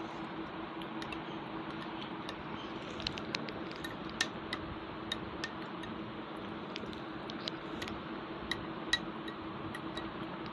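A metal spoon scraping and clicking against a small bowl of yogurt (doi) as it is eaten, in scattered light clicks, over a steady low hum.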